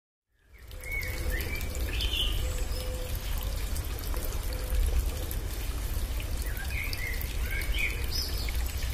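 Running water, a steady rushing with a deep rumble, with birds chirping a few short calls about a second in and again near the end. The sound fades in at the start.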